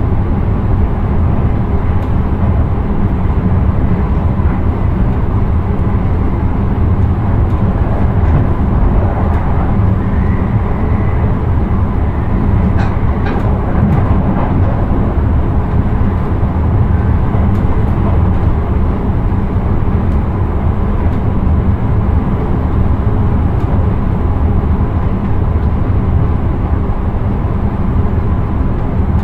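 Intercity train running along the track, heard from inside the driver's cab: a steady, loud rumble, with a few short clicks about halfway through.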